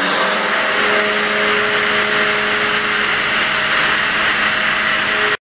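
Extra-large trimming circular saw (Zuputz-Kreissäge) running as an oversized log is fed past it to trim its sides down, a steady mechanical whine over a wide rush of noise. It cuts off suddenly near the end.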